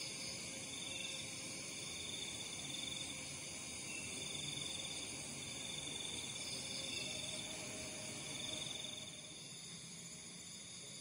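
Chorus of crickets and other night insects: steady high-pitched chirring, with a trill that comes back about every two seconds and lasts about a second each time.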